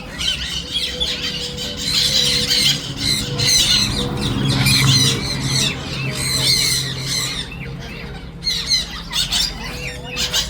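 A flock of lorikeets calling, many short, high-pitched screechy calls overlapping continuously.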